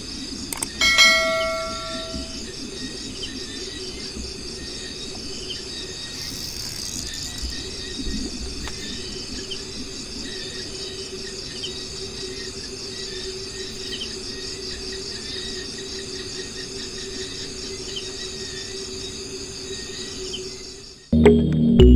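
Steady high-pitched insect chorus over a low hum, with a short ringing chime about a second in.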